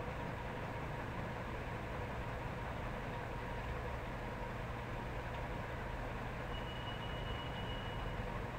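Steady hum and hiss with no speech. A faint thin high tone comes in for a little under two seconds near the end.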